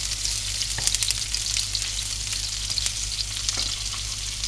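Meatballs frying in olive oil in a pan, a steady sizzle with scattered crackles and light clicks as a spoon turns them.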